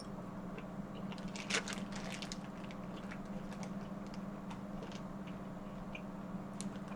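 Eating seafood by hand: scattered small cracks, clicks and squishes of shellfish being shelled and chewed, busiest about one and a half to two seconds in, over a steady low hum.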